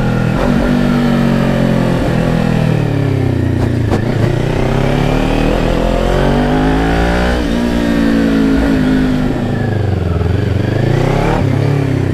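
Kawasaki Ninja 400 parallel-twin engine, breathing through a Fuse Racing aftermarket exhaust tip, heard while riding. The engine note rises and falls as the bike accelerates and eases off: the pitch climbs for the first seven seconds or so, drops, then climbs again and falls near the end.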